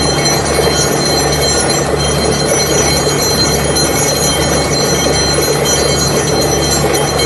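Borewell drilling rig running steadily under load: a loud, constant low drone with several steady high whining tones over it.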